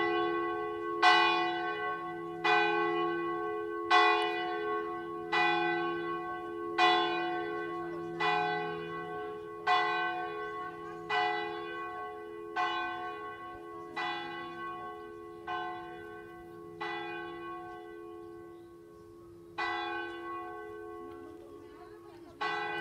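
A church bell struck again and again at a slow, even pace, about one stroke every second and a half, over a steady ringing hum. The strokes grow weaker, stop briefly, then two more strokes come near the end.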